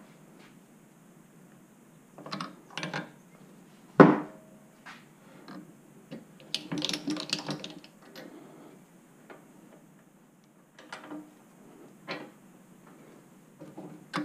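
Hand tools and small hardware being handled: scattered clicks and knocks, one sharp knock about four seconds in, and a quick run of clicking a few seconds later.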